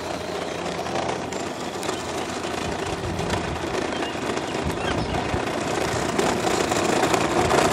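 12V Power Wheels Stinger XS ride-on toy buggy driving, its electric drive motors whirring and its hard plastic wheels rumbling on the asphalt. It grows steadily louder as it comes closer.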